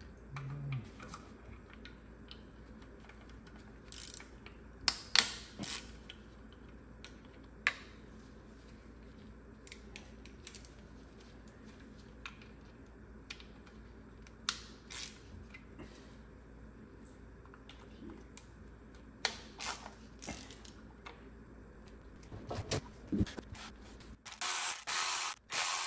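Hand tools on an engine: scattered clicks and knocks of a ratchet and metal parts as T30 Torx bolts are loosened and taken out. Near the end comes a louder rattling burst lasting about a second and a half.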